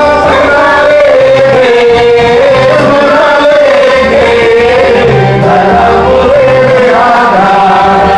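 A man singing a Christian hymn into a microphone, his melody wavering over steady instrumental accompaniment with a recurring low beat.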